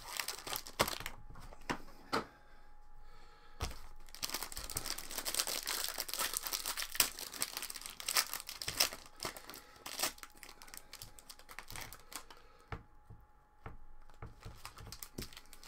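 Trading card packaging being opened: a few sharp cardboard snaps as a hobby box is pulled open, then a foil card pack torn and crinkling for several seconds in the middle, settling into lighter rustles and clicks of handled cards.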